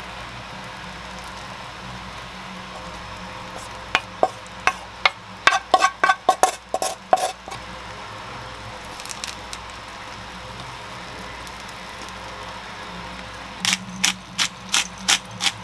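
Egg frying with a steady low sizzle in a nonstick pan over a gas burner. About four seconds in comes a run of sharp clicks and taps as stir-fried filling is put onto the egg. Near the end a hand pepper grinder is twisted, giving a quick, even run of grinding clicks.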